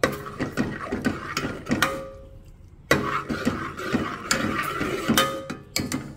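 Steel spoon scraping and clinking against an aluminium pot while stirring sugar as it melts into caramel. The strokes are quick and irregular, with a short pause about two seconds in.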